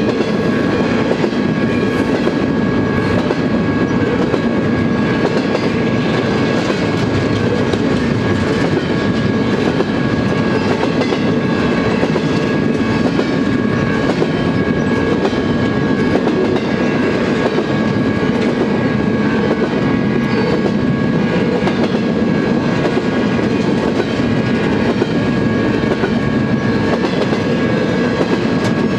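Double-stack intermodal freight train's well cars rolling past at a grade crossing: a steady, loud rumble of steel wheels on rail with clickety-clack over the joints. A steady high-pitched ringing tone sits over it throughout.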